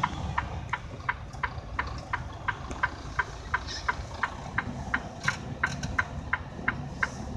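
Truck cab's turn-signal flasher clicking evenly, about three clicks a second, over the low, steady run of the truck's engine.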